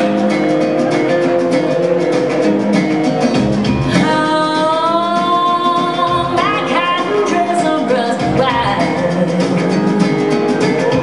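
Loud song with guitar and a steady drum beat; a singer comes in about four seconds in.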